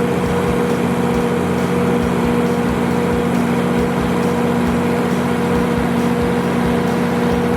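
Kohler 175 kW diesel generator set, driven by a John Deere inline six-cylinder turbocharged engine, running at a steady, unchanging speed.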